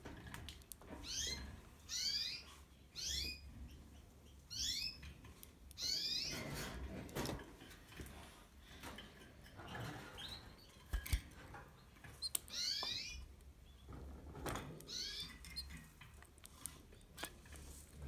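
Canary calling with short chirps that fall in pitch, repeated in clusters every second or two, with scattered light clicks and one low knock about eleven seconds in.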